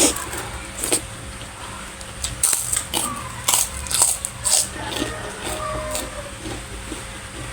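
A person eating close to the microphone: chewing and mouth smacks, with a dozen or so short sharp clicks at uneven intervals.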